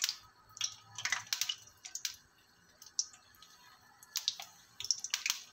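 Doughnuts frying in hot oil: irregular small pops and crackles of spitting oil over a faint sizzle, coming more thickly near the end.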